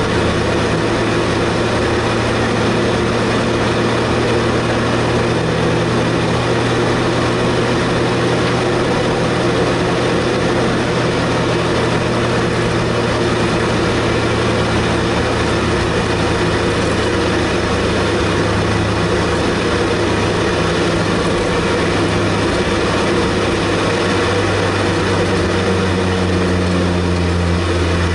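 Interior sound of a Honda Prelude club-racing car's engine running at steady, moderate revs while lapping at reduced pace behind the safety car, over steady road and wind noise in the cabin. The engine note shifts slightly in pitch near the end.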